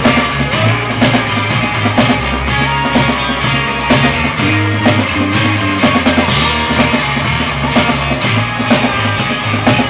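A rock band playing a song live in a small rehearsal room: a drum kit with cymbals, guitars and a stepping bass line.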